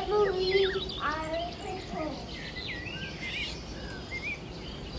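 Background chatter of a crowd, with high children's voices calling out, loudest in the first second or so.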